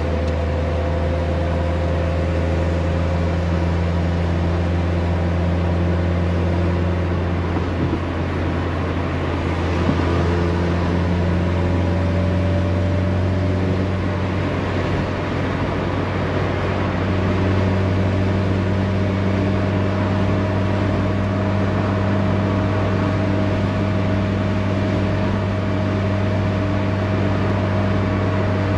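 Toyota Corolla AE86's four-cylinder engine and tyre noise heard from inside the cabin while cruising at highway speed: a steady drone whose pitch drifts slightly with speed.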